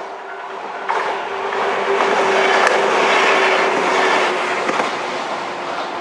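A JR 103 series 3500 subseries electric train passing over a level crossing. Its wheel and running noise swell to a peak about three seconds in and then ease off, with a steady tone underneath.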